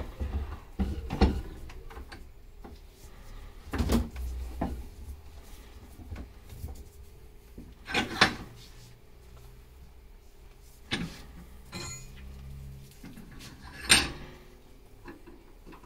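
Metal hand tools clanking and knocking against a coilover shock absorber held in a bench vise, while the stuck threaded locking ring is worked at. There are about half a dozen sharp knocks a few seconds apart, the loudest near the start, about four seconds in, around eight seconds in and near the end.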